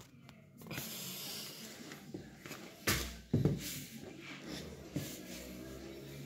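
A man's breathing and exhaling during floor exercises, with rustling and two knocks as he shifts on a towel laid over cardboard, about three seconds in.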